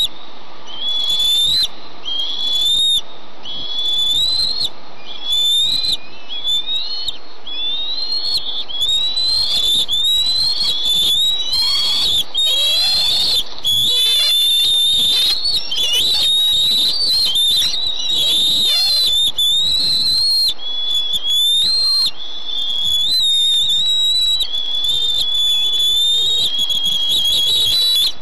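Bald eagle eaglets food-begging: a long run of high-pitched whistled calls, each rising and then holding. They come about one a second at first and run almost without a break from about halfway through.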